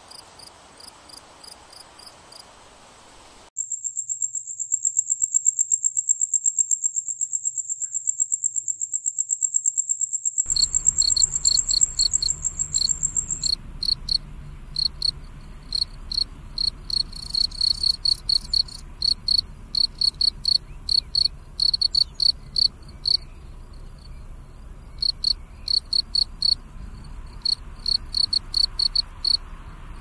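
Crickets chirping: faint pulsed chirps at first, then a loud, unbroken high-pitched trill that starts abruptly and stops about two-thirds of the way through. Overlapping it, a lower cricket song of short, rhythmic chirps begins and carries on to the end.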